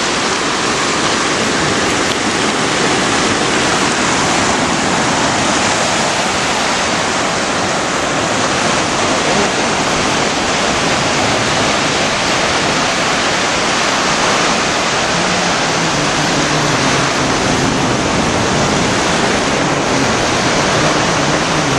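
Rough Atlantic surf on a beach: a loud, steady rush of waves.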